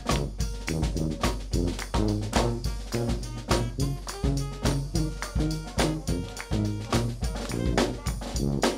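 Brass band playing jazz: sousaphone bass line under a steady beat of bass and snare drum, with alto saxophone, trumpet and trombone playing above.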